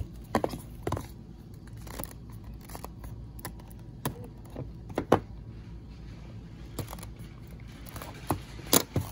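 Cardboard carton and small boxed model cars being handled: scattered taps, clicks and rustles over a low steady hum, with the sharpest knocks about five seconds in and near the end.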